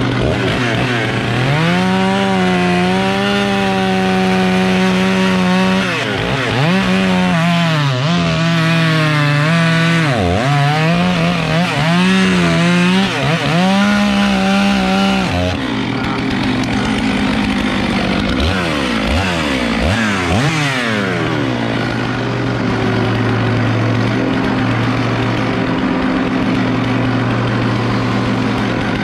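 Stihl 661 C two-stroke chainsaw bucking logs, running at high revs through a cut, its pitch dipping sharply several times as it bogs in the wood. About halfway through the revs rise and fall a few times, then drop to a lower steady note.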